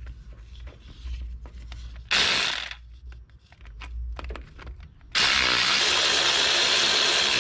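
Handheld power tool running in two bursts: a short one about two seconds in, then a longer, steady one of about two seconds near the end, with light tool clicks between.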